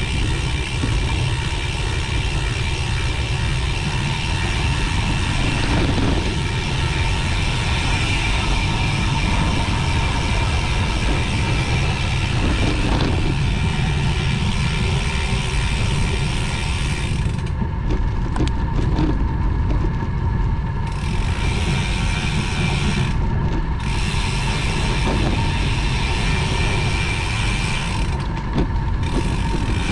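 Steady noise of a road bicycle ride: tyres rolling on the road and wind on the microphone.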